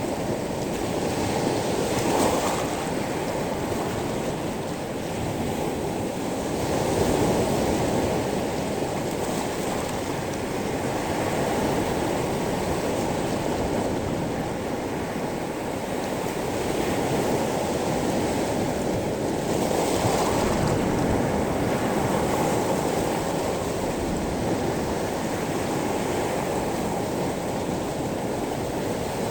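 Sea waves washing in and out over a pebble beach, a continuous surf wash. Stronger surges come about two seconds in, around seven seconds and around twenty seconds.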